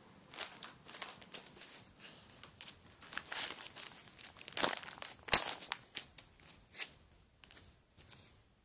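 Plastic sleeve pages of a trading-card binder crinkling and crackling as the binder is handled and held up. Two sharper crackles come about halfway through, and the noises thin out near the end.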